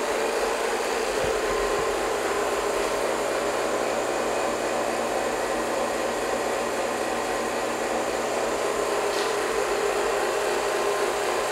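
Refrigerant recovery machine running steadily as it pulls refrigerant out of a car's A/C system into the recovery cylinder.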